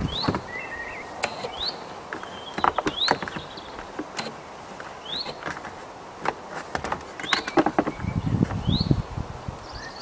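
Plastic A-pillar trim panel of a Honda Civic Type R EP3 clicking and knocking as it is handled and offered up to the windscreen pillar. Through it, a bird repeats a short rising chirp every second or two.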